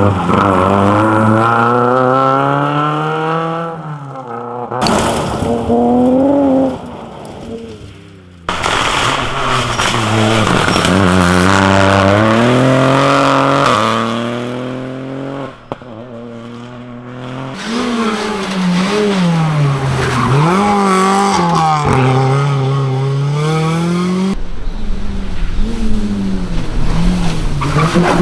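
Rally cars driven hard past on a special stage, engines revving high and dropping again and again with gear changes and lifts. The sound comes in several separate passes, each cut off suddenly.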